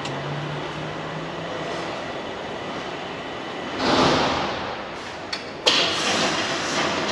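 Steady background noise of a truck service bay, with a rushing swell about four seconds in and then a click and a knock near the end.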